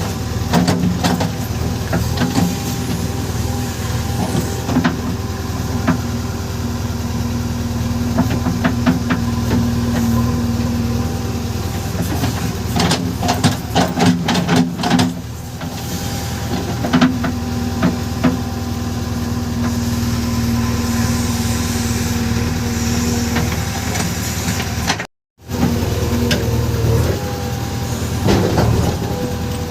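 JCB 3DX backhoe loader's diesel engine running steadily, with scattered clanks and knocks from the working machine, a cluster of them about halfway through. The sound cuts out for a moment near the end.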